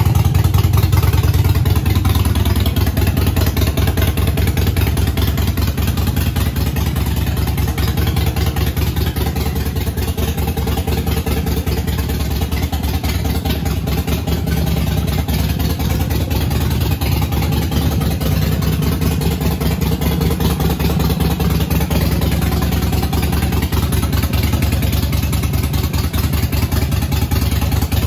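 Harley-Davidson Sportster 883 Iron's air-cooled 883cc Evolution V-twin idling steadily through an aftermarket Vance & Hines exhaust, on a stage 1 tune.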